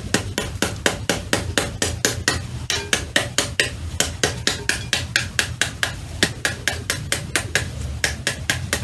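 Metal spoon rapidly whacking the rind of a halved pomegranate, about four to five sharp knocks a second, to knock the seeds out.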